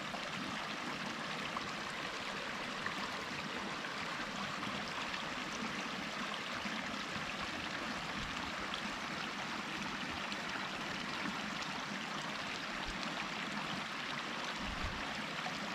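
A mountain stream running: a steady rush of flowing water.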